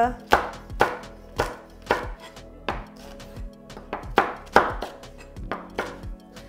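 Chef's knife chopping long red chillies on a plastic cutting board: sharp, knocking strokes, about two a second, with slight pauses between runs.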